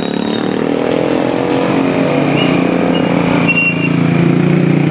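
A vehicle engine running close by, growing louder toward the end.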